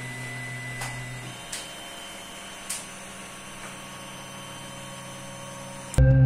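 Creality Ender 3D printer printing: its motors give off steady whining tones that shift in pitch a little over a second in as the head changes moves, with a few faint ticks. Near the end it cuts abruptly to louder ambient music.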